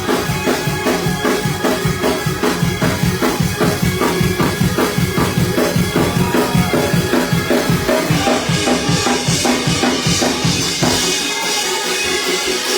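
Church band playing fast gospel shout music, a drum kit driving a quick steady beat with bass drum and snare. About eleven seconds in the drums drop out and the other instruments carry on.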